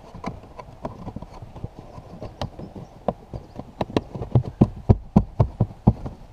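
Sharp taps and knocks of a hand pressing and patting the felt-backed plastic trim cover under the glovebox back into place, sparse at first, then louder and about four a second in the second half.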